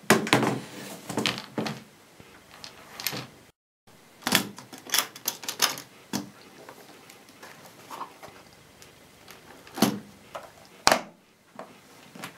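Aluminium-framed case being handled on a wooden table: scattered clicks and knocks of its frame and lid against the wood.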